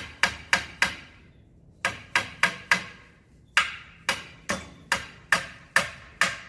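Hammer driving a nail into an old wooden fence-post board. There are about fifteen sharp blows, roughly three a second, in three runs with two short pauses between them.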